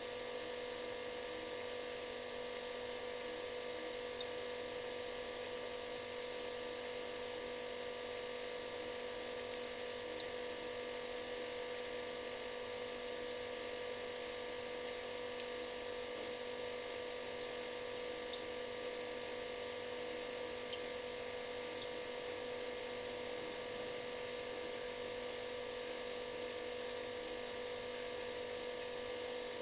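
Refrigerator running: a steady electric hum with one strong mid-pitched tone and fainter steady tones above it, over a soft hiss.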